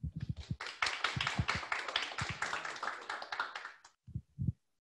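Audience applauding, a dense patter of many hands that dies away after about four seconds, followed by two soft thumps.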